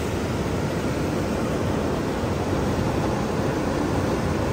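Steady rushing roar of a fast river, an even wash of water noise with no distinct splashes.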